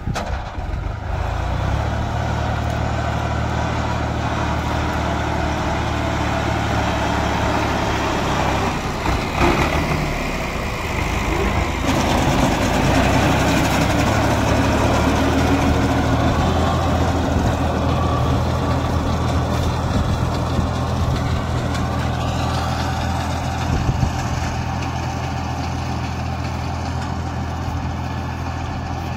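Tractor diesel engine running steadily under load while its front-mounted reaper binder cuts standing wheat.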